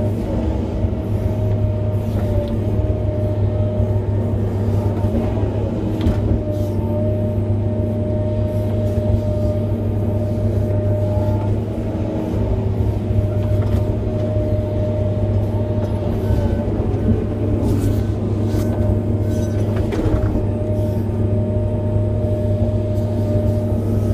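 Hitachi 470 excavator's diesel engine running steadily at working revs, heard from inside the cab as the boom and bucket work.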